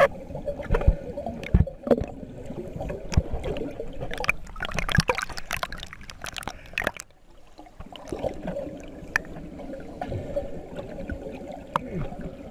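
Underwater bubbling and gurgling of scuba divers' exhaled air, recorded by a camera underwater, with many scattered clicks and a low hum. A longer, denser stretch of bubbling comes midway, followed by a brief quieter gap.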